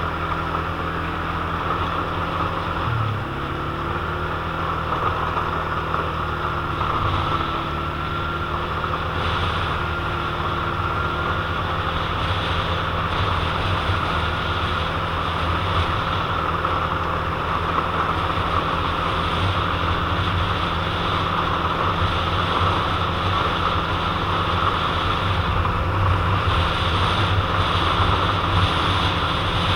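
ATV (quad) engine running steadily while the quad drives across a muddy field, its note dipping briefly about three seconds in before picking up again. Wind buffets the microphone.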